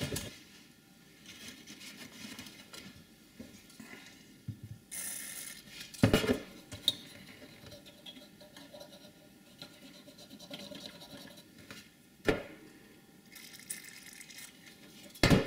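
A cotton swab scrubbing flux residue off the bare pads of a desoldered EEPROM footprint on a circuit board: a soft, scratchy rubbing. There are three sharp knocks from handling, the loudest about six seconds in, another about twelve seconds in and one near the end, plus a brief hiss about five seconds in.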